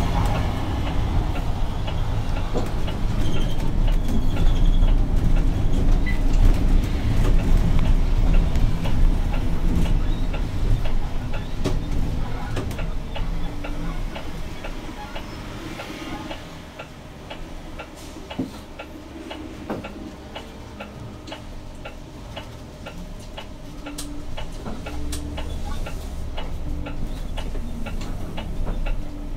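Cabin sound of a Zhongtong LCK6113SHEVG hybrid bus under way: a loud low drivetrain and road rumble that eases off after about fifteen seconds. A regular ticking, about two a second, follows, and the rumble picks up again near the end.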